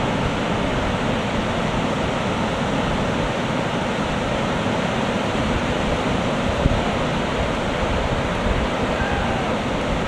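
Ocean surf breaking in a steady rush, with wind buffeting the microphone.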